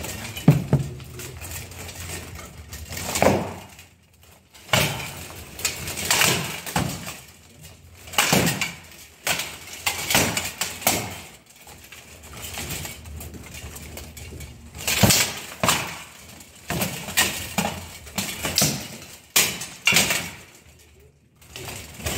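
Steel plate armour clanking and weapons striking armour and a shield in full-contact sparring: irregular sharp metallic hits, some loud, coming every second or two with short lulls.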